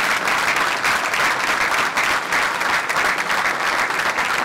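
A large crowd applauding: dense, steady clapping.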